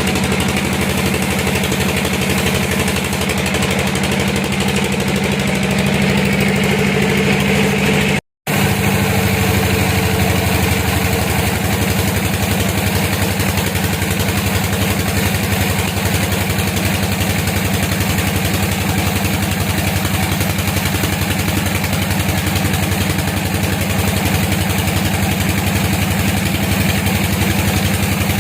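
A sawmill's engine running steadily. The sound cuts out for a moment about eight seconds in and picks up again with a slightly different pitch.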